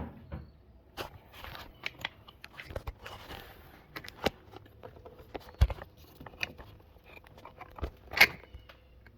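Irregular clicks, knocks and scrapes of parts and hand tools being handled and moved about, with a louder knock about eight seconds in.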